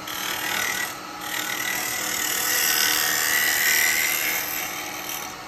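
Turning tool cutting inside a spinning alder blank on a lathe, a steady scraping hiss as the inside of the pot is hollowed out. Two cuts, with a short break about a second in; the second cut is longer and carries a faint high whine.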